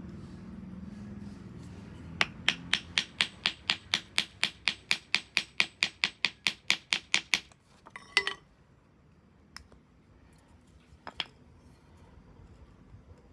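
Blacksmith's hammer striking hot metal on an anvil in a fast, even run of about four blows a second for some five seconds, then stopping. A short clatter and a few scattered lighter knocks follow.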